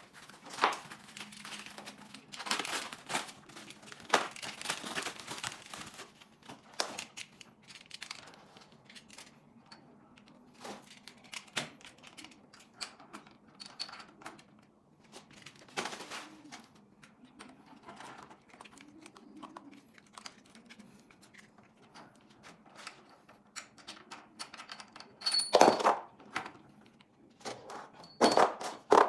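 White foam packing wrap being pulled off an electric bike's frame and handlebar, crinkling and tearing for the first several seconds. Then scattered clicks and rustles as the handlebar cables and parts are handled, with two louder knocks near the end.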